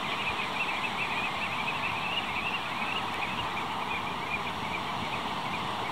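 Flock of ringed plovers calling together: a continuous chatter of many short, high, upturned whistles overlapping one another, over a steady hiss.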